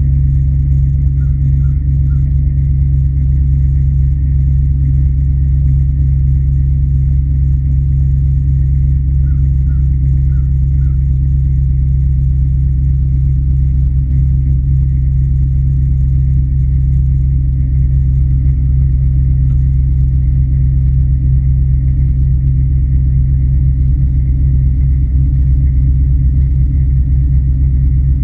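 Pickup truck engine idling steadily through its exhaust in a very cold start, a deep even drone with no revving. A few faint high chirps come twice early on.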